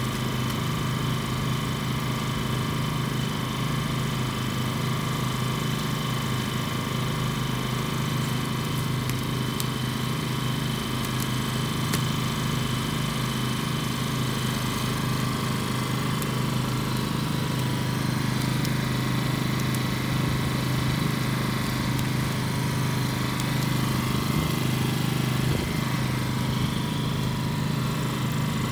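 An engine running steadily, an even drone that holds the same pitch and level throughout.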